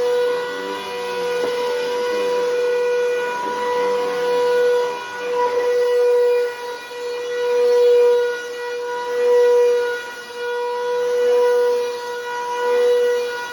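Bissell Powerforce Helix Turbo 68C71 upright vacuum running with a very loud, steady high whine, its level swelling and dipping every second or two. The owner puts the noise down to a dirty fan and motor.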